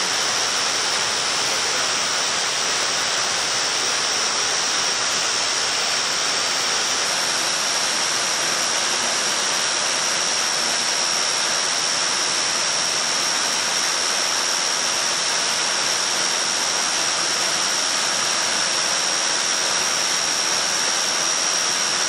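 Waterfall about 3 m high pouring into its plunge pool: a steady, unbroken rush of falling water. A steady high-pitched tone runs through it.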